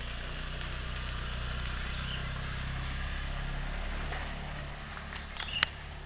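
A motor vehicle's engine running steadily at a distance, fading after about four seconds, then a few sharp clicks close by just after five seconds.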